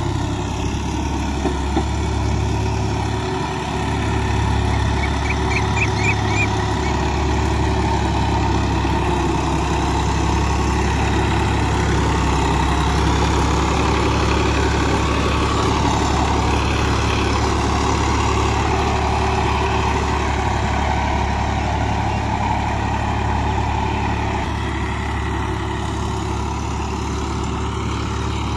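Al-Ghazi tractor's diesel engine running steadily under load as it drags a rear levelling blade through dry, dusty soil.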